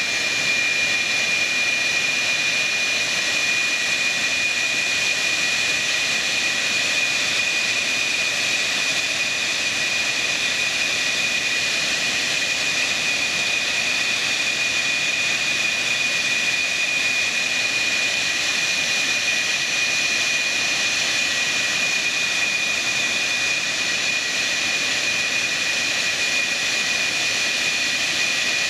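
English Electric Lightning jet fighters' Rolls-Royce Avon turbojets running at ground idle: a steady loud rush of noise with a constant high-pitched whine on top.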